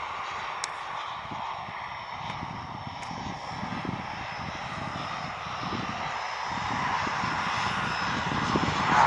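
Black Horse ViperJet RC model jet's turbine engine in flight: a steady jet rush with a thin high whine, growing louder near the end.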